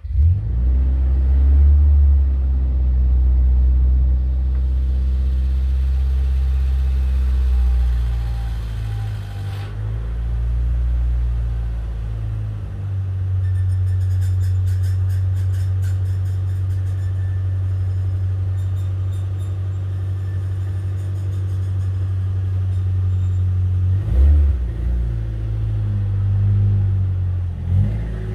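Nissan S14's engine starting up through a freshly fitted ARC titanium 3-inch exhaust with two mufflers, then running at a steady idle, with a short rev near the end. This is the first run on the new system, to hear its note and check for leaks.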